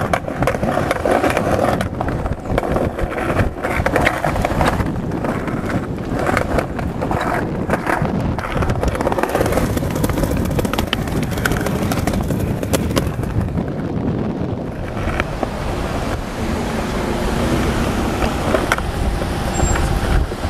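Skateboard wheels rolling fast over paving slabs, heard close up from the board: a steady rumbling rush with many sharp clicks as the wheels cross the joints. In the last few seconds the clicks thin out and the rush grows duller.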